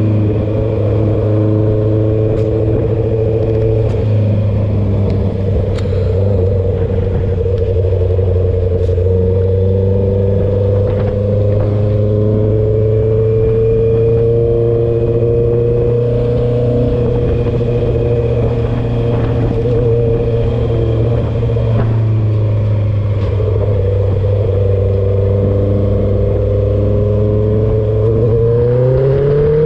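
Honda CB650R inline-four running through a straight-through full exhaust with the dB killer removed, very loud, held at a nearly steady engine speed. Near the end it revs up, the note rising as the bike accelerates.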